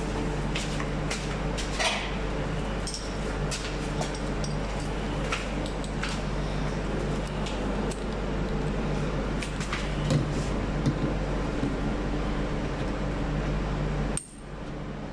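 Scattered small clicks and metallic clinks of tools and parts being handled during repair work, over a steady low hum. The background changes abruptly near the end.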